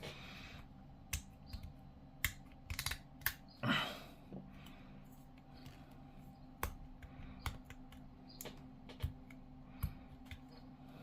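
Irregular sharp clicks and taps of hard plastic model kit parts being handled and fitted together, with a short rustle about four seconds in.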